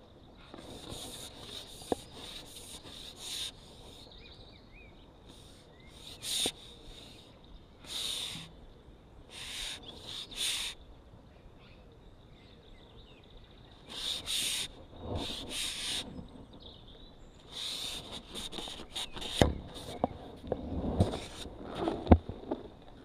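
Clothing rustling and rubbing against a body-worn camera in irregular short bursts, with a few knocks near the end.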